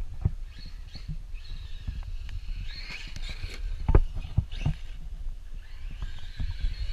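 Traxxas Maxx RC monster truck's electric motor whining, rising and falling in pitch several times as the throttle is worked, with a few sharp thumps, the strongest about four seconds in.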